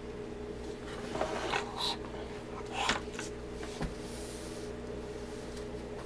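Steady low electrical hum at mains frequency with a stack of overtones. Over it come handling noises: rustles and light clicks as a radio chassis is tipped over on a bench, and a soft knock about four seconds in.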